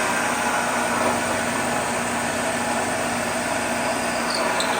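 Shopsmith multipurpose machine's motor running at a steady speed, set up as a horizontal boring machine.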